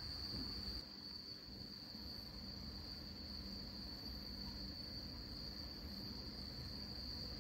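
Insects singing in a steady, unbroken high-pitched chorus, over a faint low background rumble.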